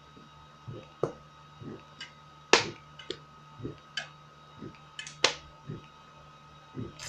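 A person gulping fizzy pop in a run of swallows, about one a second, each with a short, sharp click or slurp, over a steady faint hum.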